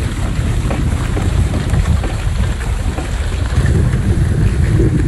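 Wind buffeting the on-board microphone over the steady rush of water past the hull of a hydrofoil sailing trimaran under way.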